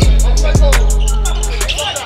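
Hip hop-style music: a deep bass line with booming low hits and quick, evenly spaced hi-hat ticks; the bass drops out near the end.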